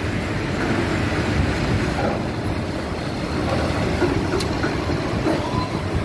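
Sawmill log debarker running with a log passing through it, stripping off the bark: a steady, dense mechanical rumble and grinding.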